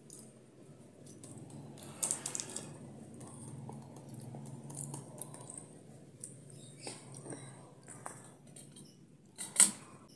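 A thin wooden stick scraping and tapping through food in a paper food wrapper, with the paper crinkling: a burst of scraping about two seconds in, a few single taps later, and the loudest sharp tap shortly before the end.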